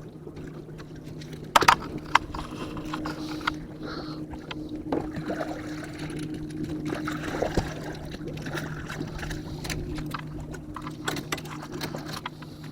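A boat's motor running with a steady hum. Scattered sharp knocks and clicks from handling on the boat sit over it, the loudest about a second and a half in.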